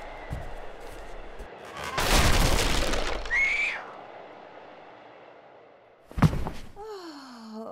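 Sound effects dubbed onto a silent film: a loud, noisy crash lasting nearly two seconds, with a short squeaky glide at its tail, then a sharp bang, then a drawn-out sound falling in pitch.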